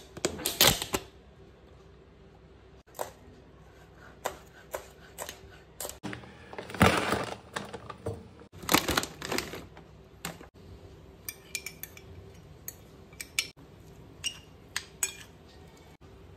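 Kitchen food-prep handling sounds in short clips: a plastic container being handled, a crinkly snack bag rustling, then a metal spoon clinking and scraping against a ceramic plate while chopped tomato and onion are mixed. The sounds are irregular clicks and rustles, with a few light ringing clinks near the end.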